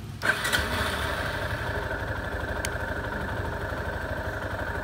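Yamaha XT250 Serow motorcycle's single-cylinder four-stroke engine idling steadily with an even, rapid low pulse. The sound comes in abruptly just after the start with a couple of sharp knocks.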